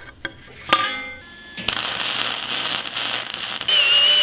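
Steel parts clinking, then a MIG welder crackling for about two seconds while bolts are tacked onto steel. Near the end a handheld power drill starts, running with a steady high whine.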